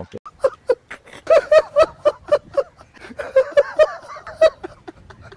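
Laughter in two bouts of quick, rhythmic 'ha-ha' pulses, each lasting about a second; the first starts over a second in, the second a little past the middle.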